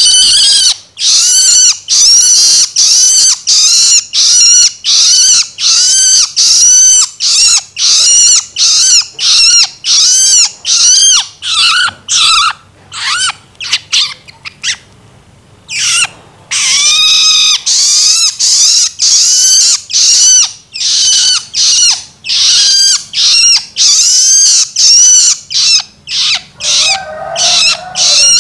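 Juvenile long-tailed shrike (cendet) giving its harsh begging call (loloan) over and over, about two short calls a second, each arching in pitch. The calls break off for a few seconds about halfway through, and a lower call comes in near the end.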